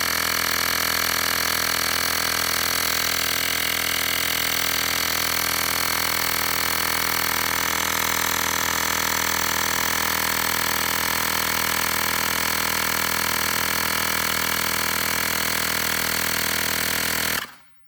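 Xiaomi portable electric mini air compressor running steadily while inflating a bicycle tyre, a loud even motor-and-pump drone that cuts off sharply near the end as it stops on reaching the preset 40 psi.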